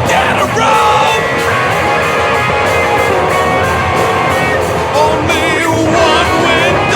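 Loud grunge-punk rock song playing, with sliding, wavering lead lines over the band from about five seconds in.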